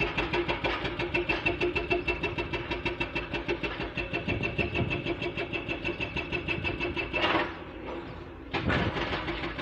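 Excavator-mounted hydraulic breaker hammering hard rock in rapid, even blows over the steady hum of the excavator's engine. The hammering stops for about a second near the end, then starts again.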